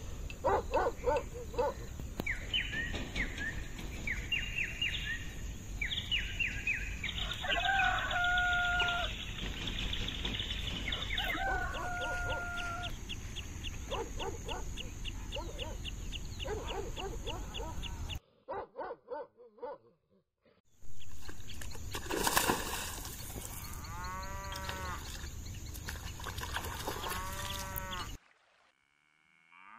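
Rural morning ambience: birds chirping in short falling notes, and a rooster crowing several times in arching calls, over a steady low rumble. The sound drops out suddenly twice, about two-thirds of the way in and again near the end.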